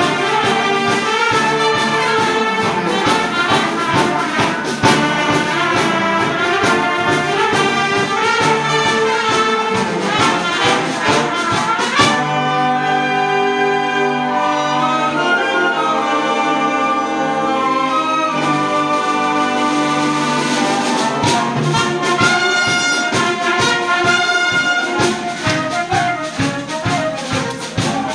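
Concert wind band playing live: brass, saxophones and clarinets over drums and percussion. About twelve seconds in, the drum strokes stop for a smoother passage of held chords. The percussion comes back about twenty seconds in.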